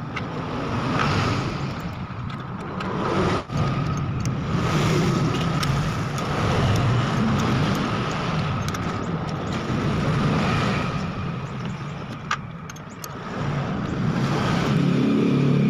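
Steady low motor-vehicle engine rumble, swelling and easing slowly, with a few sharp clicks of metal drill-stand parts being handled and fitted.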